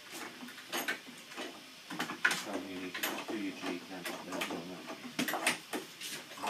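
Irregular clicks and knocks as metal clamps are tightened on a steam-bending jig.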